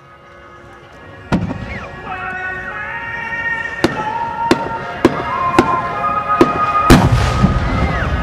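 Fireworks shells bursting: about seven sharp bangs a half-second to a second or more apart, the last the loudest, over music with long held notes that fades in at the start.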